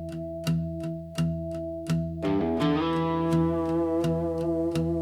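Instrumental rock music with no vocals: a steady drum beat over held bass notes, with a guitar entering about two seconds in on a quick rising run of notes that settles into sustained chords.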